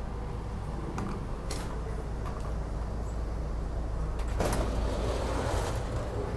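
Steady low hum of a SEPTA Silverliner IV railcar stopped at a station, with a few sharp clicks. About four seconds in, the side door opens with a sudden rush of noise, and the platform's sounds come in louder after it.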